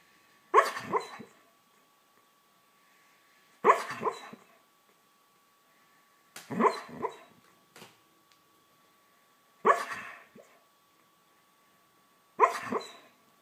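A dog barking in its sleep while dreaming: five short bursts of a few quick, soft barks and yips, about every three seconds.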